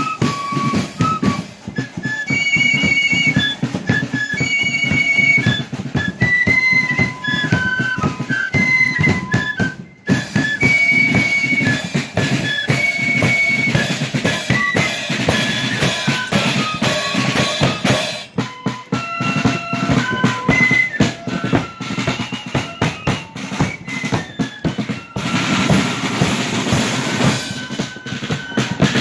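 Marching flute band playing: flutes carry a high melody over continuous snare and bass drumming, with a momentary break about a third of the way through.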